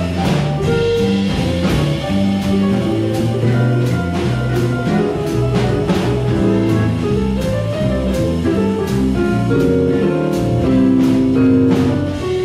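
Small jazz band of trumpet, trombone, saxophones, piano, guitar, bass and drum kit playing a swing tune. A bass line moves note by note under sustained horn and chord tones, and the drums keep an even beat.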